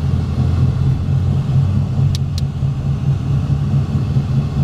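Steady low rumble of a car driving at highway speed, heard from inside the cabin. Two short ticks come about two seconds in.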